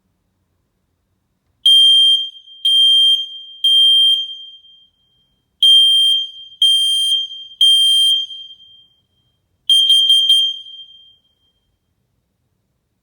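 Carbon monoxide detector alarm sounding with loud, high-pitched beeps: two groups of three beeps about a second apart with a short pause between groups, then a third group that breaks into a stuttering run of short chirps.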